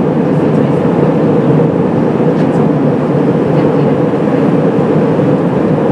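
Steady cabin noise of an Airbus A320-232 in flight, heard from a window seat over the wing: the drone of its IAE V2500 engines mixed with the rush of air past the fuselage, even and unbroken.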